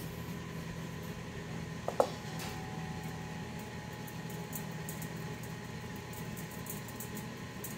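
Steady low kitchen background hum, with a short falling chirp about two seconds in and a faint steady tone after it. Faint light ticks of furikake flakes falling from the shaker into a stainless steel bowl.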